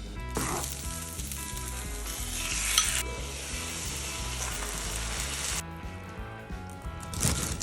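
Food sizzling in a hot frying pan. The sizzle stops about five and a half seconds in and briefly flares again near the end, over soft background music.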